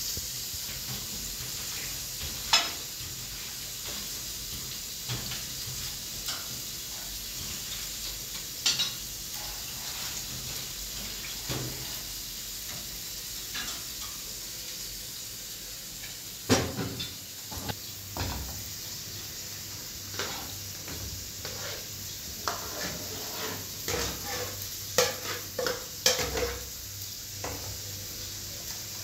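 Kitchen work with metal pans: a steady hiss under scattered clinks and knocks of pans and a spatula against pots while rice is washed and tipped into a cooking pot. The knocks come more often in the second half.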